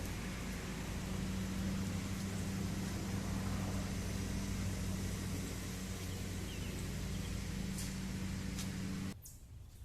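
A steady mechanical hum with a low, even drone that cuts off abruptly about nine seconds in.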